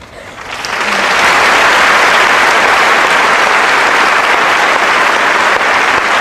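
Audience applauding, swelling up over the first second and then holding steady.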